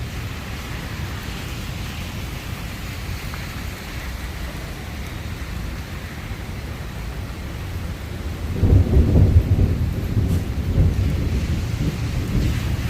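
Steady rain falling during a thunderstorm. About eight and a half seconds in, a loud low rumble of thunder sets in and rolls on to the end.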